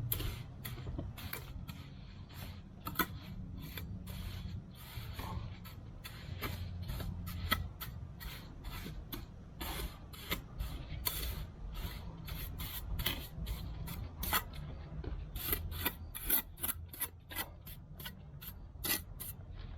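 Mason's trowel scraping mortar in quick, irregular strokes, several a second at times, over a steady low hum.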